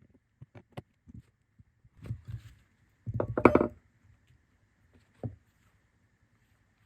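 Scattered light taps and knocks, with a louder clatter of several knocks about three seconds in and a single knock about two seconds later. A faint steady high whine runs underneath from about two seconds in.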